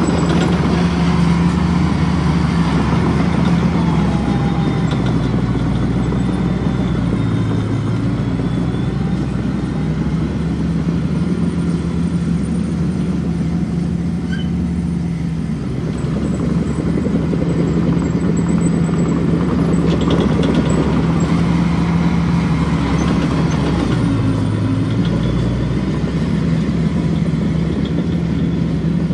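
Diesel engine of earthmoving machinery running steadily, with its note shifting briefly twice as the load changes.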